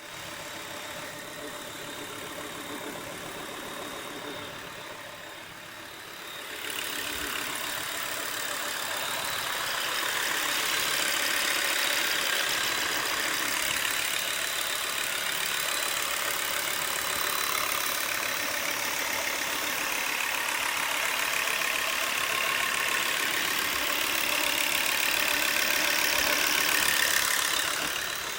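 Volvo V70 2.5T's turbocharged five-cylinder engine running steadily, getting louder about a quarter of the way in and staying at that level until it drops just before the end.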